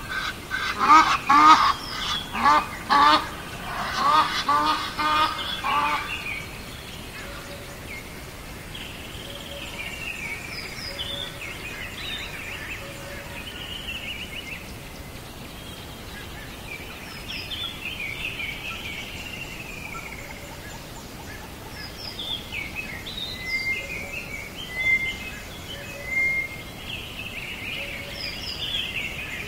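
Birds calling: a rapid run of loud, repeated honking calls over the first six seconds, then scattered high chirps and short calls.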